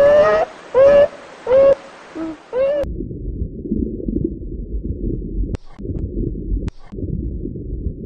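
A nutria (coypu) giving a run of short squeaky calls, about one every three-quarters of a second, each rising then falling in pitch. After about three seconds they cut off and a low rumbling noise follows, with two brief clicks near the end.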